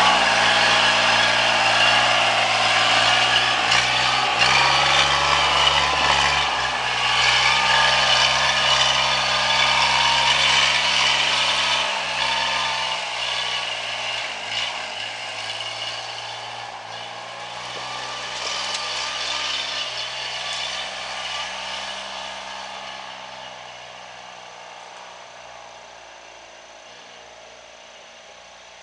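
Kubota RTV1100 utility vehicle's three-cylinder diesel engine running as it climbs a steep rock slope, its note stepping up and down in pitch a few times, then fading over the last several seconds as it moves away.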